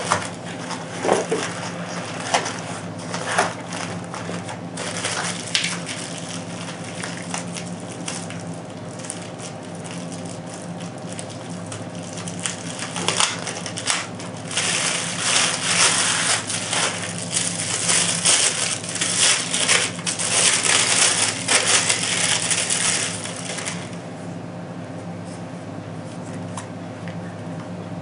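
Packaging being handled as a spotting scope and its accessories are unpacked: scattered clicks and knocks, then about ten seconds of dense crinkling and rustling from about halfway through. A steady low hum runs underneath.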